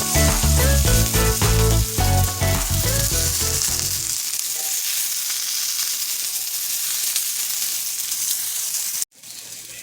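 Halved Brussels sprouts sizzling as they sear in hot olive oil in a skillet: a steady frying hiss. Background music plays over the first four seconds or so and then stops; about nine seconds in the sizzle cuts off abruptly and returns much quieter.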